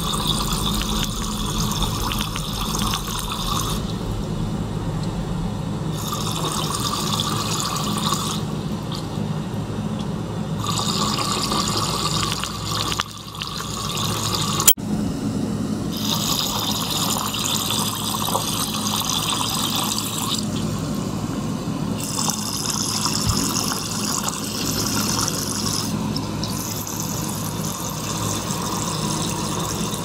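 Water flowing and bubbling as a small pump circulates it through plastic tubing into a tank, over a steady low pump hum. The splashing changes every couple of seconds as the pump alternately draws water and air through the line. There is a brief break about halfway through.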